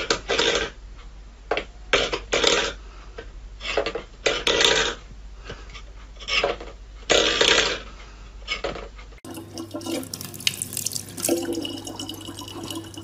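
Steel bowl scraped and clattered over a wooden floor by a cat's paw, in repeated short bursts. About nine seconds in, a tap starts running a thin stream of water into a plastic bottle.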